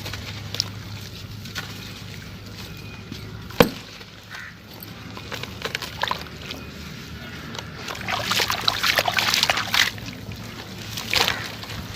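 Crunchy sand-cement chunks being crushed and crumbled: scattered gritty crackles, one sharp crack about three and a half seconds in, and a denser run of crunching from about eight to ten seconds.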